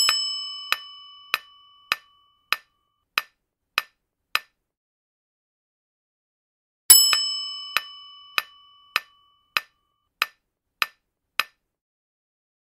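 Quiz countdown-timer sound effect: a bright chime that rings and fades over about two seconds, followed by steady clock-like ticks, about one every 0.6 seconds. After a short silence the chime and ticking start again about seven seconds in.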